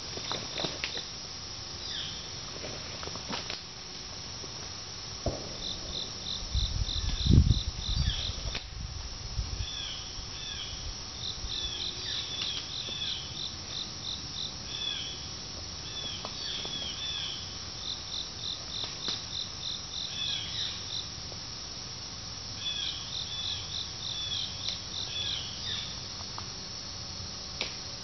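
Insects chirping in the woods: bursts of rapid high pulses, about eight a second for a second or two, recurring every five or six seconds, with shorter falling chirps in between. A brief low rumble about seven seconds in is the loudest sound.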